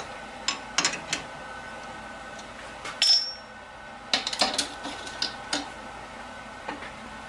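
Metal clinks and knocks as a four-jaw lathe chuck is loosened with its chuck key and the machined metal part is lifted out of the jaws. One strike about three seconds in rings briefly, and a quick run of clinks follows about a second later.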